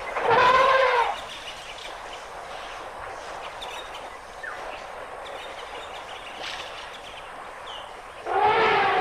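African elephant trumpeting: a short trumpet blast in the first second, falling at its end, and a second, longer trumpet starting near the end. Faint bird calls sound in between.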